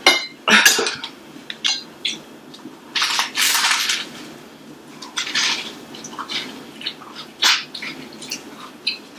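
Close-miked eating mouth sounds: irregular wet clicks and smacks, then a bite into a soft lobster roll near the end.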